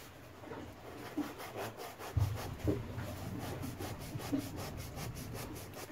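Small knife blade cutting and scraping a groove into a soft foam fishing buoy, a steady run of short scraping strokes a few times a second, with a couple of dull bumps a little over two seconds in.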